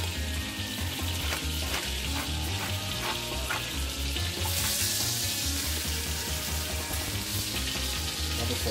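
Beef cheek searing in hot olive oil and butter in a stainless steel pot, sizzling steadily. A run of light shakes comes between about one and three and a half seconds in as salt is shaken over the meat.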